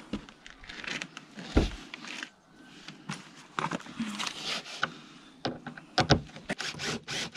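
Knocks and taps of wooden trim being handled against board siding. Near the end a Makita cordless drill-driver runs in several short bursts, driving a fastener into the trim.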